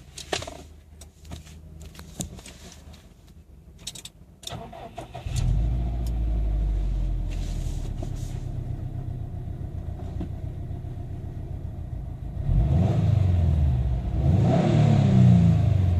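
2013 Subaru STI's turbocharged flat-four engine: a few clicks and knocks, then the engine starts about five seconds in and settles into a steady idle. Near the end it is revved twice, the pitch rising and falling each time.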